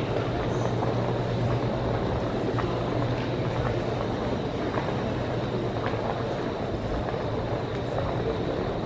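Steady background hum of an airport terminal concourse, with a low drone and a faint wash of distant noise.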